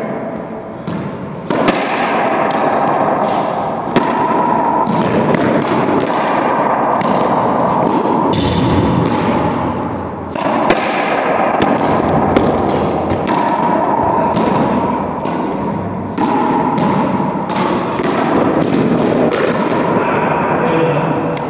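Racquetball rally: the ball hitting racquets, walls and floor in a series of sharp impacts at irregular intervals, each ringing on in the echo of the enclosed hard-walled court.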